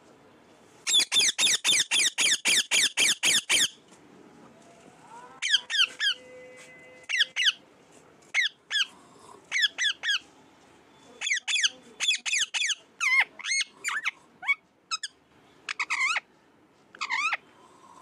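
Rose-ringed parakeet calling: a fast, even run of about a dozen short shrill calls, then after a pause, short groups of two to four squawks and chirps that slide up and down in pitch, with gaps between them, stopping shortly before the end.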